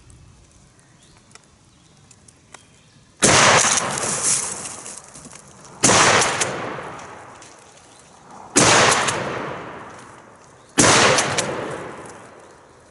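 Four shots from a Mossberg 835 12-gauge pump shotgun, fired a little over two seconds apart. Each is a sudden loud blast that dies away over about two seconds.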